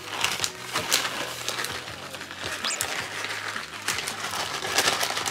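Plastic bag of grated cheese crinkling and crackling as the cheese is shaken out over a baking tray.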